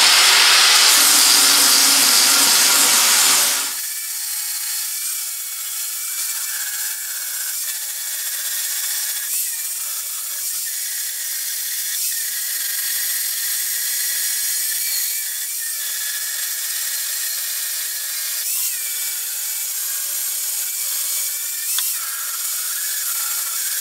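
Grinder grinding a weld bead flat on a metal cover. A loud, harsh grind for the first three or four seconds, then a steadier motor whine with lighter grinding, the pitch dipping briefly every few seconds as the disc bears on the metal.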